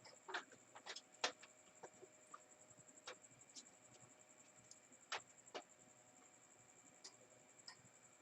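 Scattered small clicks and taps of parts being handled and fitted into a Panasonic stereo's chassis, irregular and spaced a second or so apart, over a faint steady high-pitched whine.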